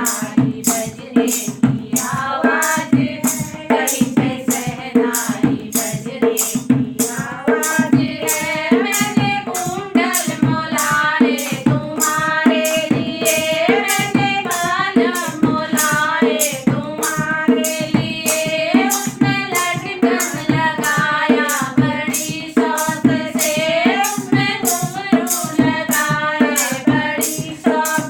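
Voice singing a Hindi banna-banni wedding folk song over a steady hand-drum beat of about two strokes a second.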